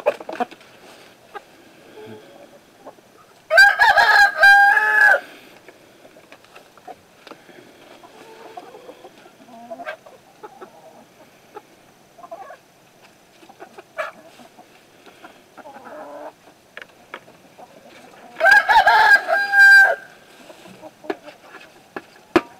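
A rooster crows twice, about three and a half seconds in and again about fifteen seconds later. Each crow has a broken opening and ends on a long held note. Between the crows, the flock of hens clucks quietly.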